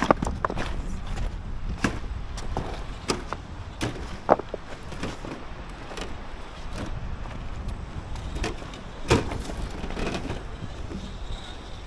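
Loose beach pebbles clicking and crunching under the tyres of a 1/8-scale Yikong YK4083 RC crawler as it crawls over them: irregular sharp clicks and knocks, two of them louder (about four seconds in and about nine seconds in), over a low rumble.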